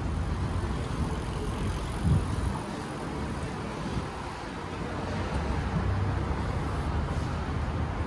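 Street ambience: road traffic with wind rumbling on the microphone, and a brief gust about two seconds in.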